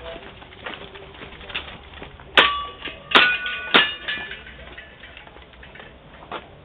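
Airsoft BBs striking steel targets: three loud metallic pings in the middle, each ringing briefly, among softer pops and clicks from the airsoft gun firing.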